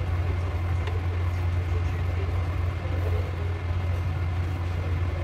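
A steady low hum that holds even throughout, with a faint tick about a second in.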